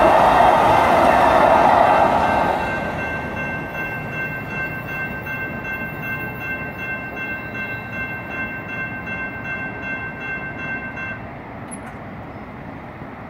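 Sacramento RT light rail train with CAF cars running past over the crossing, loud for the first two seconds or so and then fading away. The crossing warning bell rings in a steady rhythm of about two rings a second and stops about eleven seconds in.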